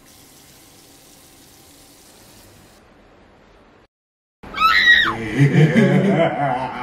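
Bathroom tap running faintly into a sink as water is splashed on the face, a steady wash of water noise for about four seconds. It stops dead, and half a second later loud music comes in, opening with a falling glide.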